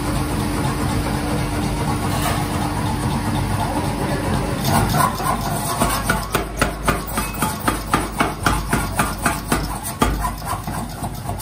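Mechanical power hammer running on its belt-driven electric motor, a steady mechanical hum. From about five seconds in, its ram strikes hot steel in a rapid, regular series of blows, about three a second.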